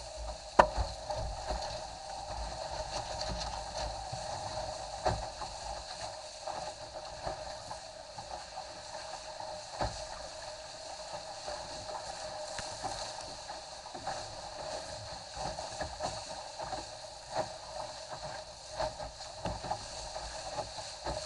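Steady rush of water past a Cherub skiff's hull sailing fast through chop, with sharp knocks every few seconds as the hull slaps into waves, the loudest about half a second in.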